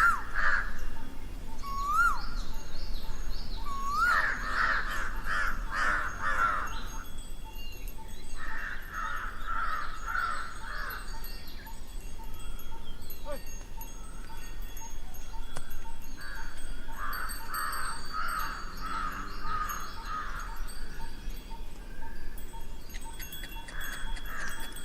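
Outdoor birdsong: several bouts of harsh cawing calls, with short whistled notes and high chirps from other birds between them.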